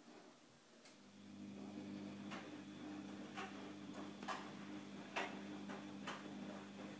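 A faint, steady low electrical hum sets in about a second in, with about seven sharp clicks at irregular intervals over it.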